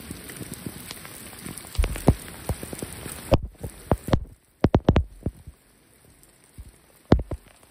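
Heavy rain pattering on wet stone steps, with scattered close, sharper knocks of drops. About three and a half seconds in, the steady rain hiss drops away suddenly, leaving only the scattered knocks.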